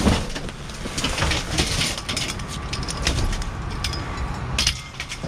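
Rustling plastic trash bags and irregular clattering knocks as the metal tubing of a broken pop-up canopy frame is pulled about inside a steel dumpster, with a heavy thump at the start.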